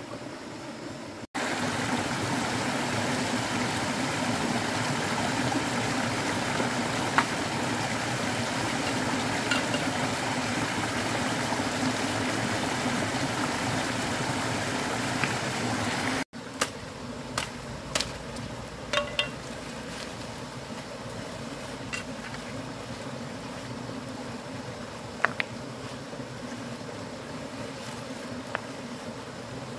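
Shallow stream water running and splashing over rocks in a steady rush, which jumps louder about a second in and drops back abruptly about halfway through. A few sharp light knocks follow in the second half, as stones are handled in the water.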